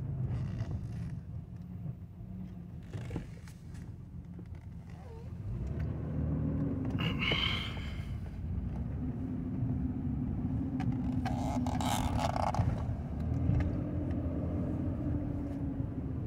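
Car engine and tyre rumble heard from inside the cabin while driving, getting louder about five seconds in as the car speeds up. Two short higher-pitched sounds come through, one about seven seconds in and one near twelve seconds.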